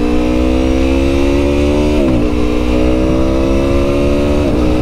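2017 Aprilia Tuono Factory's V4 engine pulling under acceleration, its pitch climbing steadily, with two quick upshifts, one about two seconds in and one near the end, each dropping the pitch for a moment. A low wind rumble runs underneath.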